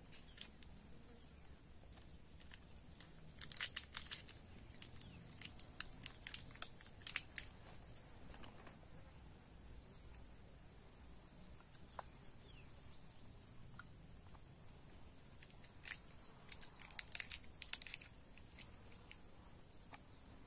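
Plastic bag crinkling and rustling as it is handled, in two bouts of quick crackles, one a few seconds in and one near the end.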